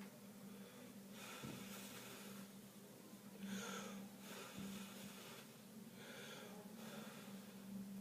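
A person's breath near the microphone: soft, hissy puffs roughly once a second, over a steady low hum.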